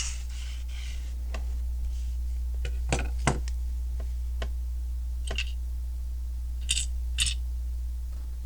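Small plastic Lego pieces clicking as they are handled and pressed together: a handful of short sharp clicks, the loudest about three seconds in, over a steady low hum.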